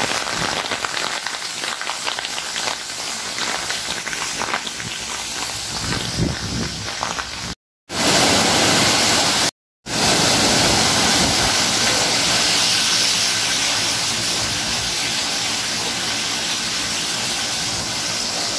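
The Giessbach mountain stream's waterfalls rushing and splashing steadily over rock ledges. The sound cuts to silence twice, briefly, about eight and ten seconds in.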